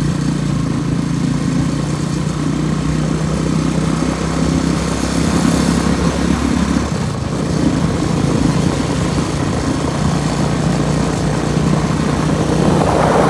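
Motorcycle engine running steadily on the move, with a constant low engine tone under road and wind noise.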